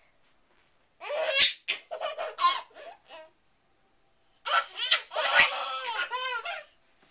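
Twin babies laughing and giggling in two bursts, one starting about a second in and one about halfway through, each lasting about two seconds.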